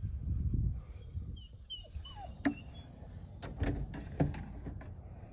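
A dog whining in short, high, wavering glides, followed by several sharp clicks and knocks.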